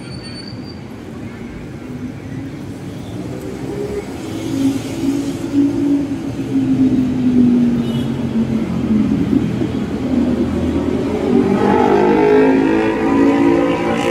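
Road traffic on a wide city boulevard: a steady rush of passing vehicles, with one engine falling in pitch as it goes by about midway and another growing louder near the end.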